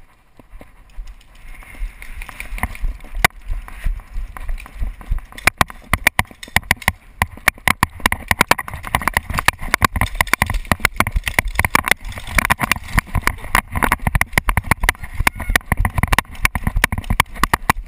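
Paintball markers firing rapidly: a few scattered pops early, then from about five seconds in a dense stream of sharp pops, several a second, over a low rumble of movement.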